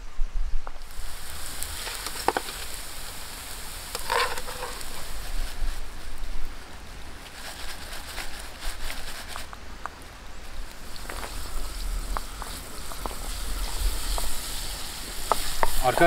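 Hot oil sizzling in a frying pan over a campfire: a steady hiss with scattered small crackles, starting about a second in.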